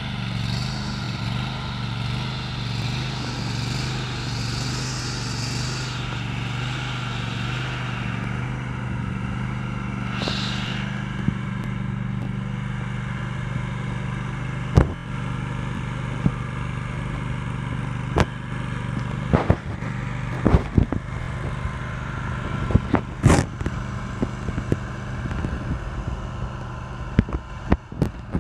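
Exmark Turf Tracer walk-behind mower's engine running at a steady speed. From about halfway on, a series of sharp clicks and knocks sounds over it.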